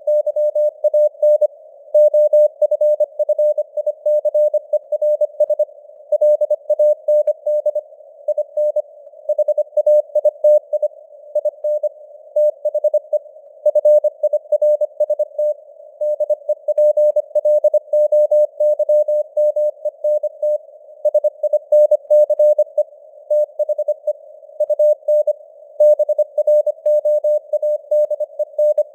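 Morse code sent at 25 words per minute as a steady tone of about 600 Hz, keyed on and off in rapid dots and dashes with short gaps between letters and words. A narrow band of simulated radio hiss sits around the tone underneath it. The keyed text spells out news headlines.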